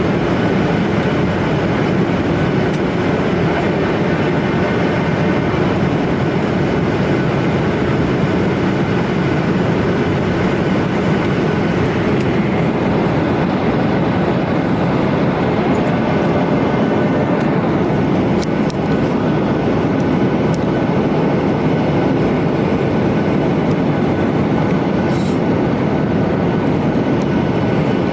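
Steady, even rumble of a rail car running, with a few faint high clicks in the second half.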